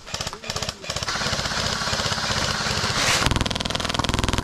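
Airsoft M60 electric machine gun firing on full auto: a few short bursts, then one long unbroken burst of about four seconds.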